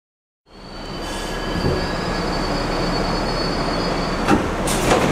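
Interior noise of a Kawasaki R62 subway car beside a station platform. Steady train noise fades in with a thin high whine, which stops about four seconds in, and a couple of sharp knocks follow.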